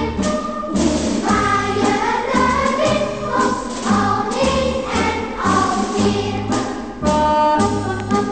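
Background music with singing voices and a bass line moving in regular steps.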